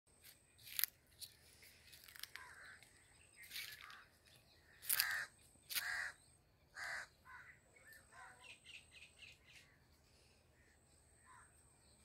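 Crows cawing: about five loud caws spaced through the first seven seconds, followed by fainter, shorter calls.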